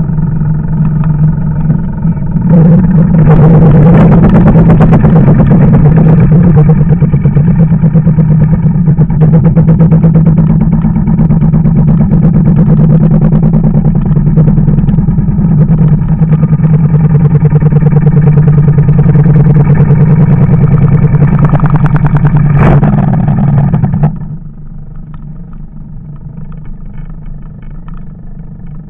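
Engine of a piece of farm equipment running loudly with a steady, fast beat. It gets louder about two seconds in, then drops off sharply near the end.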